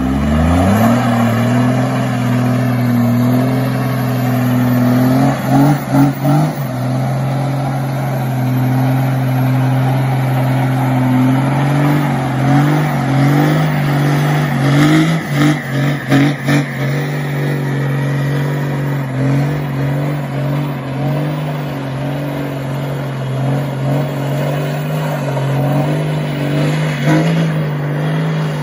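A 12-valve Cummins inline-six turbodiesel in a Dodge Ram pickup revs up in the first second and is held at high revs through a long burnout, its rear tyres spinning on asphalt. The revs dip and flutter briefly a few times, around a fifth of the way in and again near the middle.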